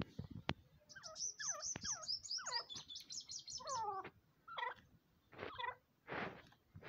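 Grey francolin calling at close range: a quick run of high chirps with downward-sliding squeaky notes among them for about three seconds, then a few separate, shorter calls, the last one harsher.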